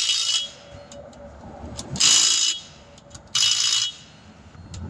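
Pneumatic impact wrench run in short bursts of about half a second, tightening the lug nuts as the wheel goes back on: a burst ends just after the start, then two more follow about two and three and a half seconds in.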